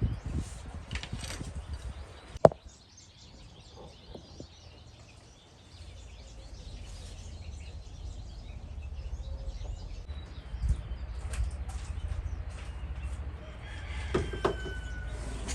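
Faint bird chirps over a low steady rumble, with one sharp click about two and a half seconds in.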